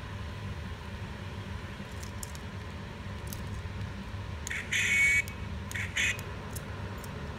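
Iron Man figure keychain's tiny built-in speaker giving two short, harsh, buzzy electronic sound effects about a second apart as its button is pressed, over a steady low hum, with a few faint handling clicks before.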